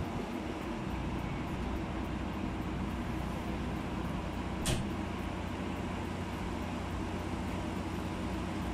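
Steady low machine hum, with one sharp click about four and a half seconds in.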